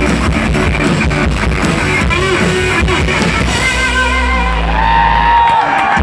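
Live rock band playing loudly with electric guitars, bass and drum kit, in the closing bars of a song. The drum hits stop a little past halfway and the guitars ring on with held and sliding notes.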